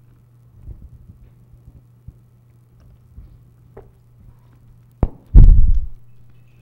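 Steady low electrical hum on the microphone with faint rustles. About five seconds in comes a sharp click, then a loud, low thump.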